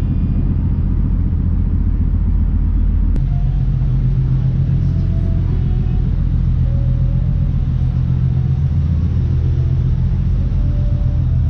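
Ferry's engine running with a steady, deep rumble that shifts slightly in tone about three seconds in.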